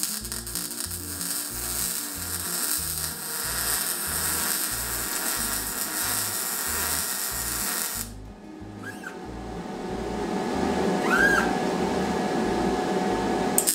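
MIG welding arc crackling steadily as a bead is laid on steel rebar, stopping about eight seconds in and starting again right at the end. Background music plays throughout.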